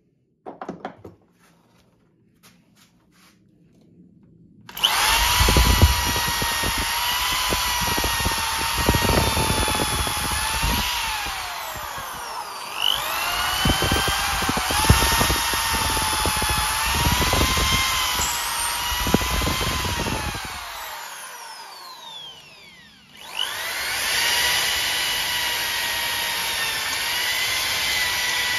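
Electric drill boring out the old wooden handle wedged in an axe head's eye. Its motor whine wavers in pitch as the bit bites into the wood, with knocking from the bit underneath. After a few faint clicks it starts about five seconds in, dips briefly around twelve seconds, stops for a moment near twenty-one seconds, then runs again steadily.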